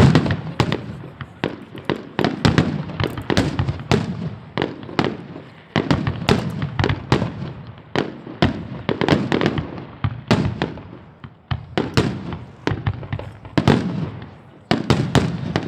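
Fireworks display going off: a rapid, irregular run of sharp bangs and cracks, several a second, each followed by a booming rumble that fades.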